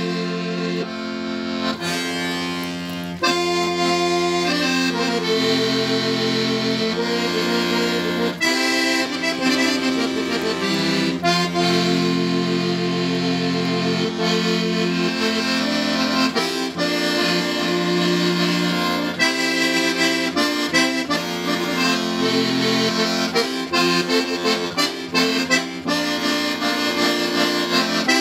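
Background music: a Sardinian folk dance tune played on accordion, with held bass notes changing every few seconds under a quick, busy melody.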